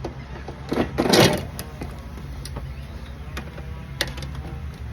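Metal parts of a window air conditioner being handled: a loud scrape and rattle about a second in, then a few sharp clicks over a steady low hum.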